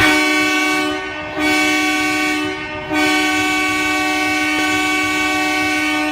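Hockey goal horn sounding three blasts, several low tones at once: two blasts of about a second each, then a long one of about three seconds.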